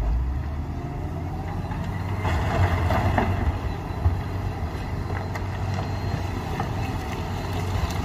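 Wheel loader's diesel engine running under load as it drives forward with a bucket of rock, a steady low rumble that grows louder about two to three seconds in. A single sharp knock sounds about four seconds in.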